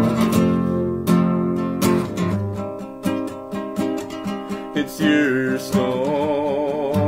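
Nylon-string classical guitar strummed in a rhythmic chord pattern. About six seconds in, a wordless sung note with vibrato joins the guitar.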